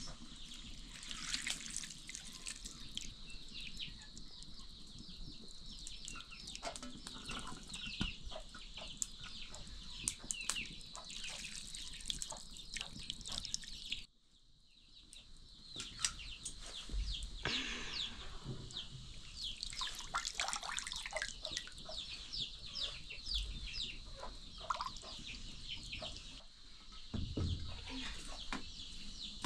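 Birds calling in many short, quick chirps over a steady high-pitched drone; everything cuts out abruptly about halfway through, then comes back.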